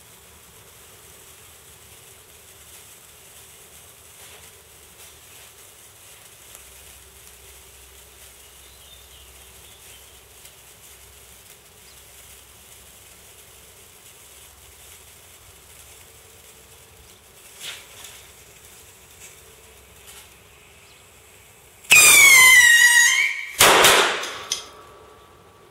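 Black Jack firework: the fuse burns with a faint hiss for about twenty seconds. The firework then goes off with a loud shrieking whistle that falls in pitch, followed about a second and a half later by a sudden loud burst.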